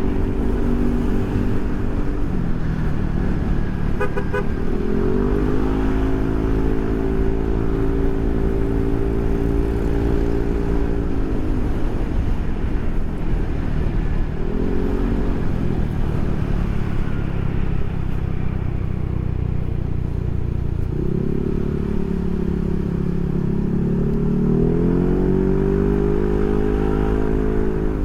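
Yamaha NMAX scooter's single-cylinder engine running through a Proliner SR Neo Silent aftermarket exhaust while riding, its note rising and falling several times with the throttle. It has a deep, mellow exhaust note, which the rider calls really cool and soothing ('adem banget').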